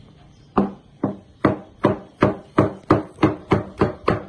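Cleaver chopping food on a plastic cutting board: a steady run of sharp knocks, about three a second, starting about half a second in.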